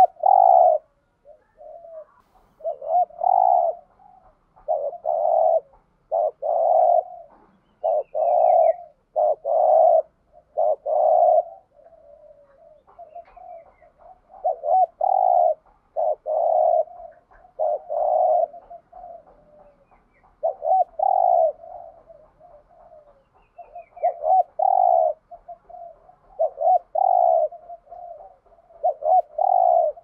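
Spotted dove cooing over and over, a steady series of deep coos of about half a second each, with short gaps between phrases. Faint chirps of a small bird come now and then.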